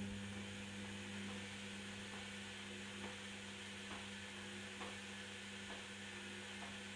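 Candy Activa Smart washing machine giving off a steady low electrical hum, with faint ticks about once a second.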